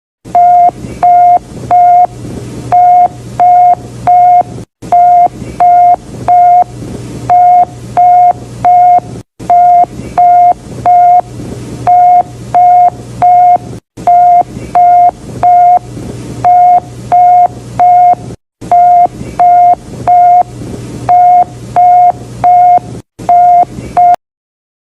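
An old emergency alert alarm: a loud single-pitched beep repeating in quick groups of three over hiss and a low hum. The short recording restarts every four to five seconds and cuts off about a second before the end.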